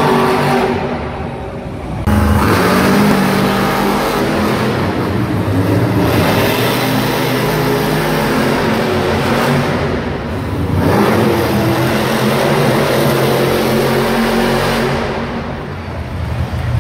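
Monster truck supercharged V8 engines revving hard and running loud, the throttle swelling and easing off several times, with a sudden surge about two seconds in.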